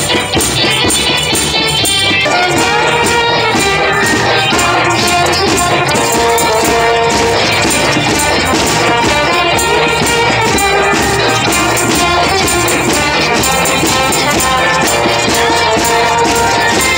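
Live amateur percussion band: a snare drum struck with sticks and maracas shaken in a steady beat, with a sustained melody line over it.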